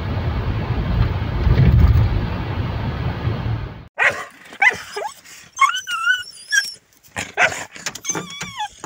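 Steady low road and engine noise inside a moving car's cabin, cut off at about four seconds by a dog whining and yelping in short, wavering high-pitched cries as it jumps up at the open car door, greeting its owner.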